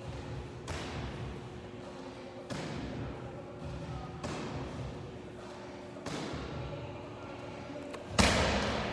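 Medicine ball in wall-ball shots striking the wall target with a thud about every two seconds, four times. Near the end comes a louder thud as the ball is dropped onto the rubber gym floor.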